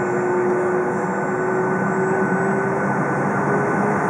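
Boeing 757 jet engines running at taxi power, heard inside the passenger cabin as a steady rushing hum. A steady whine in it shifts slightly higher about three seconds in.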